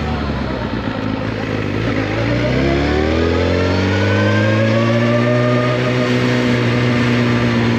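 2014 Suzuki GSX-R1000's inline-four engine under way. The revs sit low at first, then climb steadily from about two and a half seconds in as the bike accelerates, and hold at a higher, steady pitch near the end, over a steady rushing noise.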